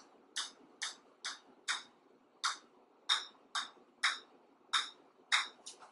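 A golf ball bouncing on the face of an iron: about a dozen sharp taps, roughly two a second and slightly uneven, as the ball is kept up on the clubface.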